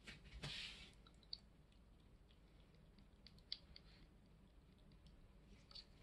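Faint scattered clicks and a brief soft hiss about half a second in, as a powdered supplement is sprinkled by hand over dry kibble in a stainless steel bowl.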